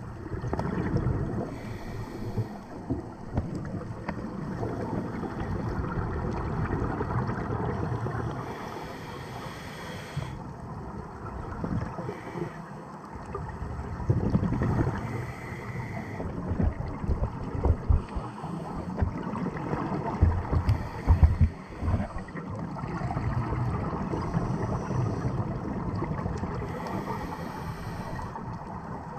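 Scuba diver breathing through a regulator underwater, heard through a camera housing: a hiss on each inhale roughly every six seconds, with low bubbling rumbles of exhaled air between them.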